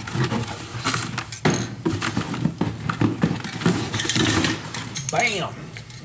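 Rummaging through a cardboard box: rustling plastic bags and packing, with repeated knocks and clatters as items are moved and handled.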